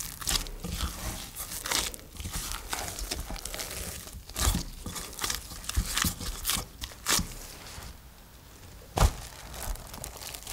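Gloved hands kneading and punching soft, sticky bread dough in a glass bowl: squelching, with the dough tearing and pulling off the gloves in short irregular strokes. Near the end, plastic cling film is stretched over the bowl with a crinkle.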